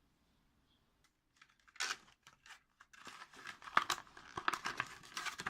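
Packaging being torn open and crinkled by hand: irregular tearing and rustling that starts after about a second and a half of near quiet and grows busier toward the end.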